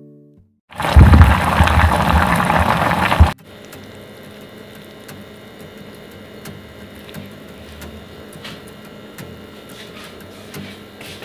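A loud rushing noise starts about a second in and cuts off suddenly two and a half seconds later. Then soaked wakame (miyeok) seaweed is squeezed and turned by hand, with soft wet squishes and light clicks over a faint steady hum.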